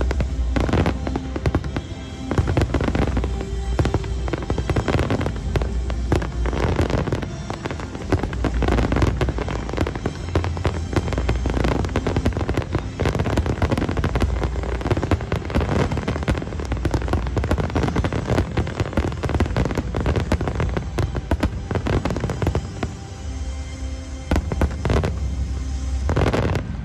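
Fireworks barrage: many aerial shells bursting almost continuously, a dense run of bangs and crackling, with music underneath.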